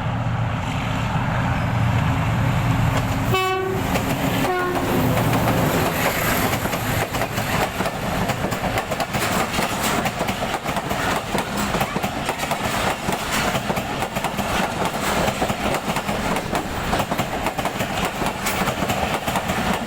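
Train running on the track, a low rumble giving way to steady clattering of wheels over rail joints. The train horn sounds one short blast about three and a half seconds in and a briefer, fainter one a second later.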